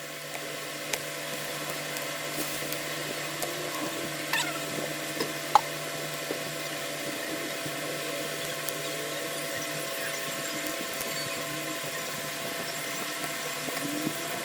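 Steady hum of a small electric machine, with a few faint clicks, the sharpest about five and a half seconds in.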